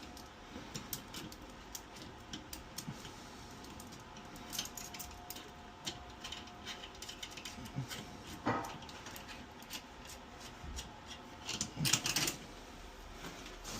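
Irregular light clicks and clinks of small hard objects being handled, with a louder rattling clatter about twelve seconds in.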